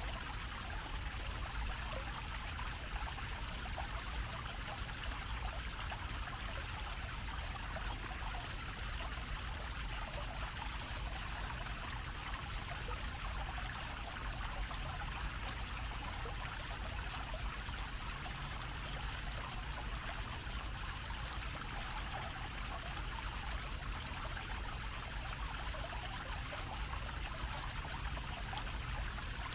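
Fountain water splashing steadily and evenly: a low dome-shaped jet falling back onto the grate of its basin.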